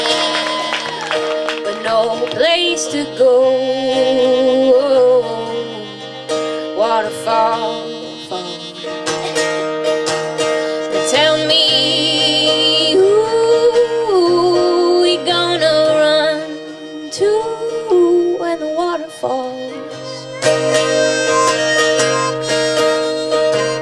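Acoustic band playing an instrumental break with a harmonica taking the lead, its notes bending and wavering in pitch over steady held chords.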